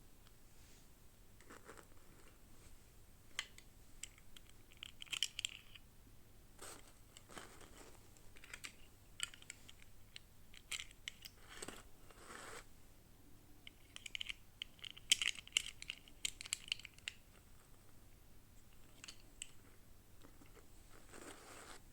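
Toy packaging being handled and opened by hand: scattered light taps and clicks with short bursts of crinkling and tearing plastic and paper. The crinkling runs longest about five seconds in and again around fifteen seconds in.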